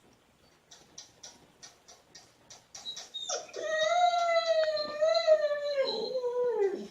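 A dog's long, wavering whine, held for about three and a half seconds and falling in pitch at the end. It follows a run of short soft ticks, about three a second.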